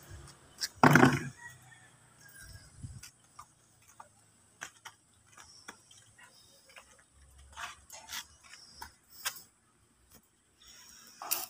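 A short loud noise about a second in, then scattered light clicks and taps of metal being handled while welding gear is set against a steel gate frame.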